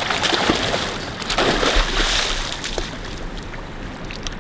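Water splashing and sloshing in two rough surges, about a second apart, as a hooked channel catfish thrashes at the surface while being landed.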